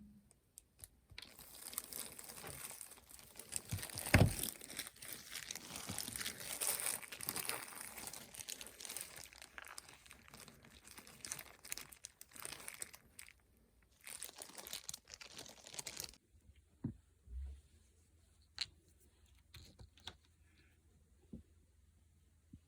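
Thin fishing lead sheet being cut and handled: crinkling and tearing, with a sharp knock about four seconds in. Around sixteen seconds in the crinkling stops, leaving a few scattered light clicks and a low thump.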